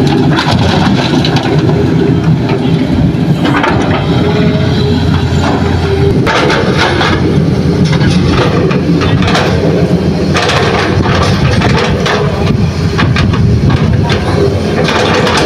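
Hitachi hydraulic excavator's diesel engine working under load as the machine dumps, swings and digs, with repeated clatter of soil and stones.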